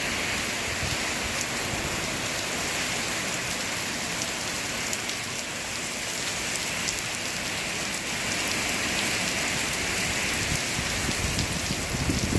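Heavy squall rain pouring down in a steady hiss: the first band of a storm's outer rain bands coming through.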